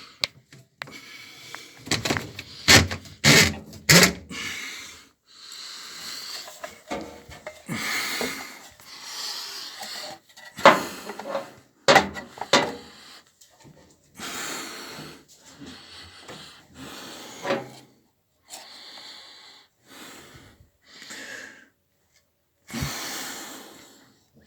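Irregular knocks, clicks and rubbing in short bursts with pauses between, from hands moving parts and hoses about inside a washing machine's casing.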